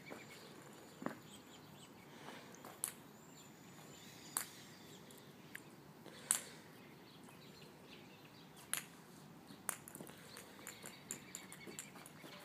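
Faint outdoor background noise with scattered soft clicks and ticks, more of them near the end.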